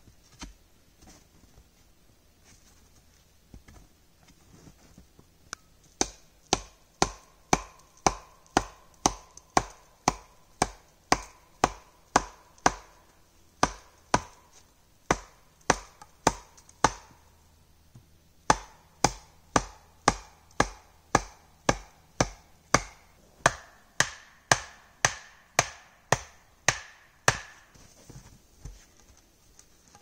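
A short log swung as a wooden mallet, pounding on a wooden pole in steady blows about two a second, each with a short ringing knock. The blows come in two runs with a brief pause between, the ringing note higher in the second run.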